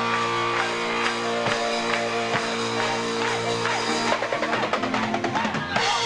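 A live dance band holds a long chord, with electric guitar among the instruments. About four seconds in, a fast roll on the drum kit comes in.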